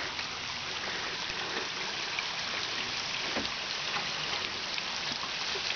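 Waterfall pouring and splashing: a steady rush of falling water.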